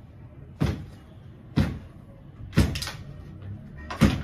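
Four heavy thumps, roughly a second apart, over faint background music.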